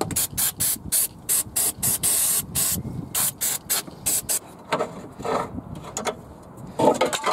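Aerosol can of Holts silicone spray hissing in a run of short squirts, about three a second with one longer squirt about two seconds in, lubricating a seized rubber control-arm bush so it will slip out. A sharp knock near the end.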